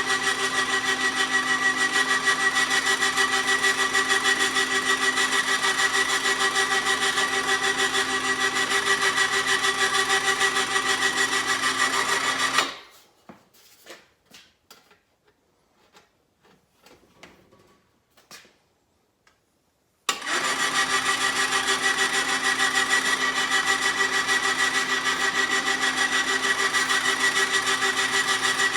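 Motor-driven bead roller running with a steady whine. It stops abruptly about halfway through, leaving a few light clicks and knocks of metal being handled, then starts again about seven seconds later.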